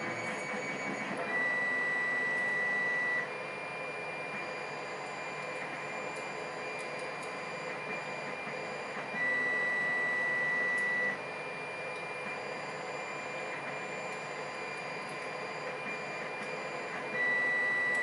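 Steady hiss of background noise, with a high steady tone that comes in for about two seconds three times, roughly eight seconds apart.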